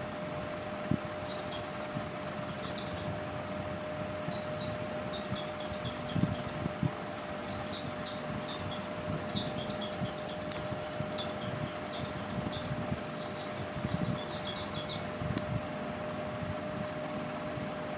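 A small bird chirping in short bursts of quick, high chirps, repeated on and off, over a steady hum. A few soft knocks from hands and marker on the paper and carpet come now and then.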